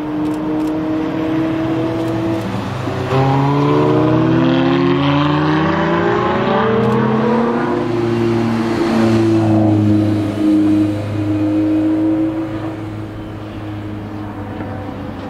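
Ferrari F12 Berlinetta V12 engines, several cars together, accelerating hard. A steady engine note gives way about three seconds in to overlapping notes that climb in pitch and drop back at each upshift, loud for several seconds. They settle to a quieter, steadier drone near the end.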